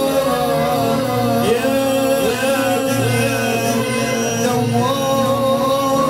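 Live Libyan popular music: an electronic keyboard plays a sliding, ornamented melody over a pulsing bass and percussion accompaniment.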